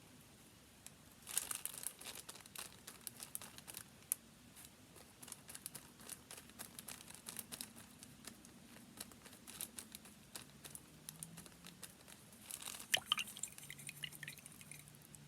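Paper being handled, rustling and crinkling in a dense run of small crackles and clicks that starts about a second in.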